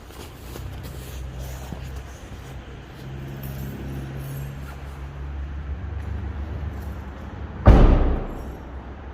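Abarth 595 C's 1.4-litre turbo four-cylinder running steadily through its stock Monza exhaust. About three-quarters of the way through there is one sudden loud burst, the loudest sound in the stretch, which dies away within about half a second.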